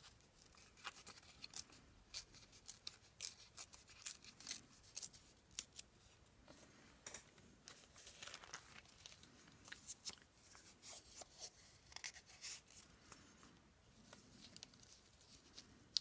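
Scissors cutting paper: many short, faint snips at an irregular pace.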